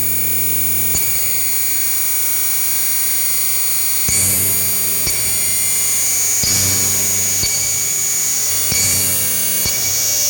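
Droning electronic synthesizer music: steady low and high sustained tones with sharp clicks, and a hissing noise sweep that rises in pitch about every two and a half seconds.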